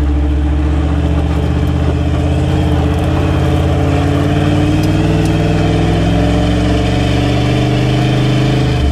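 Toyota LandCruiser Troop Carrier's engine running loud as it drives a gravel mountain road, heard close from a camera mounted on the vehicle's side. The engine note rises slowly through the middle and eases off near the end.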